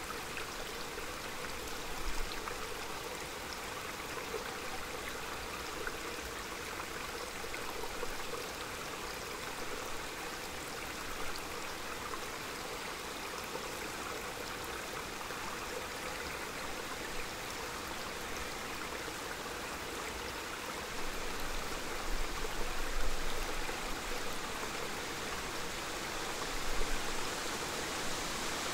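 Small forest mountain stream running steadily over stones, a continuous even rush of water. A few low gusts of wind swell in around 22 and 27 seconds in.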